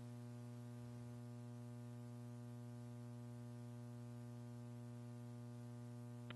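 Steady electrical mains hum with a stack of overtones, over faint hiss, on the broadcast audio feed.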